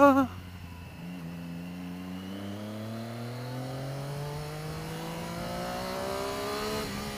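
Triumph Daytona 675R's 675 cc inline-triple engine pulling away under gentle acceleration, its note climbing slowly in pitch for several seconds. Near the end there is a brief break and a drop in pitch, as the quick shifter snaps it up a gear.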